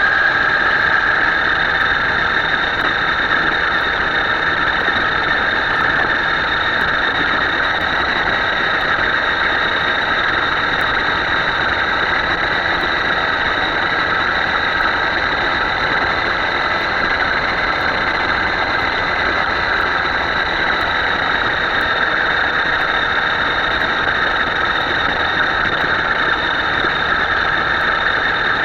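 A Himoto radio-controlled boat's motor running at a steady high speed with a constant high whine, over a steady rushing noise.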